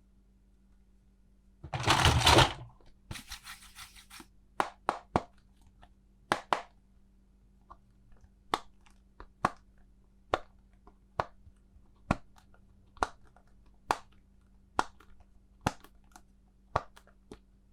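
Packaging tearing open about two seconds in, a brief crinkle, then sharp clicks of plastic toy parts, settling into an even run of about one click a second in the second half.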